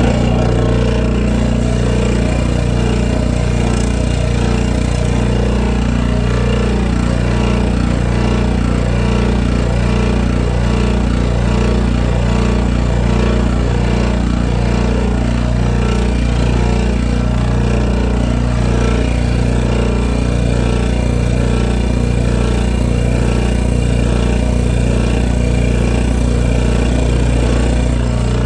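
Scroll saw with a 360-degree blade running steadily while cutting a wooden duck-call piece held in a jig. It is a constant, loud machine hum and buzz that starts abruptly.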